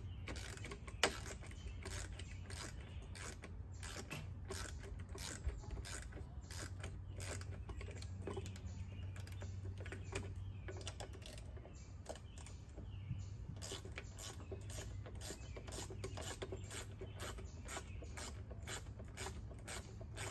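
A hand screwdriver driving screws to mount a bracket on a wooden post: a long run of sharp clicks and creaks, about two a second in the second half, over a steady low hum.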